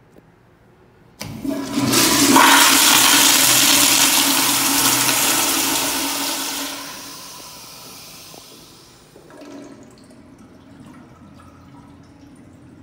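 Commercial toilet with a chrome flushometer valve (Kohler Highcrest bowl) flushing: a sudden loud rush of water starts about a second in, holds for about five seconds, then tapers off as the valve shuts, leaving a faint trickle.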